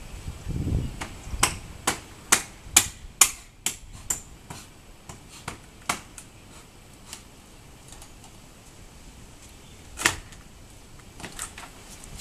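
Hammer striking a window frame in light, sharp blows: a run of about ten knocks, two or three a second, starting a second and a half in, then a few scattered taps and one louder knock near the end.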